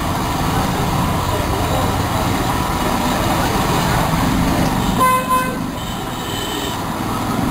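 Steady street traffic noise, with a vehicle horn honking briefly about five seconds in.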